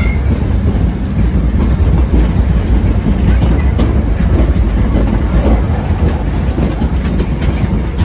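Narrow-gauge tourist train running, heard from an open-sided carriage: a steady low rumble of wheels on the rails with scattered clicks from the track.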